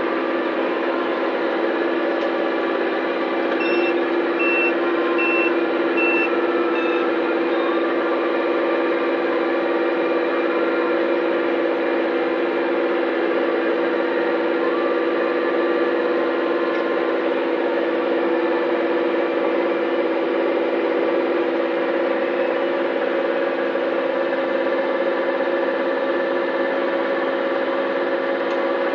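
Massey Ferguson 5460 Dyna-4 tractor running steadily under load with a Claas Rollant 46 RC round baler working behind it, a loud, even drone. About four seconds in, an electronic beeper gives a run of short high beeps, roughly two a second, for a few seconds.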